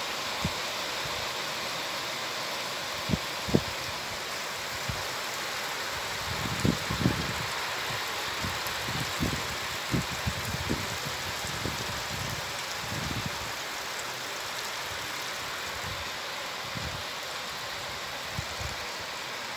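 Heavy rain falling steadily in an even hiss, with scattered short low thumps and rumbles, the loudest about three and a half seconds in and again around seven seconds.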